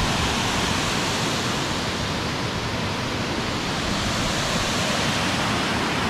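Waterfall rushing: a steady, even noise of falling water with no breaks.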